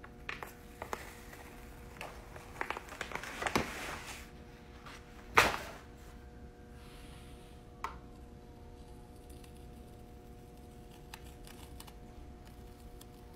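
Crinkling and rustling of a thin cover sheet being pulled off a freshly heat-pressed T-shirt, with one loud sharp crackle about five seconds in. Later come fainter crackles as the clear carrier sheet is peeled off the heat-transfer vinyl, over a faint steady hum.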